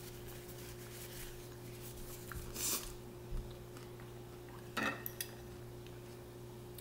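Quiet tableware handling: a hard-shell taco and a plastic utensil moved about on a glass plate, giving a short rustle and a few light taps and scrapes, over a steady low hum.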